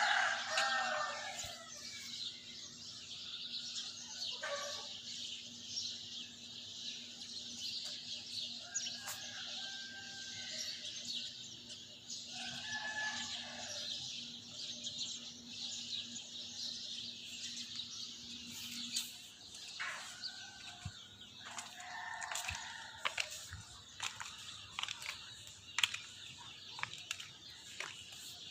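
A morning chorus of many small birds chirping without a break, high and dense. Louder, lower calls about a second long break in several times, the first right at the start. A faint steady hum stops about two thirds of the way through.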